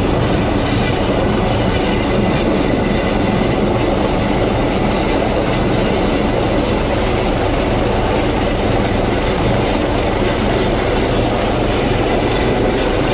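Helicopter hovering low overhead: a loud, steady rotor and engine noise with no let-up.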